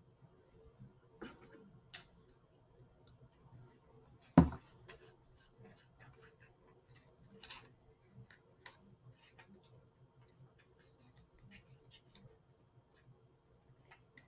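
Faint rustling and light clicks of paper strips being handled and pressed down onto a sheet of paper on a table, with one sharp knock on the tabletop about four seconds in.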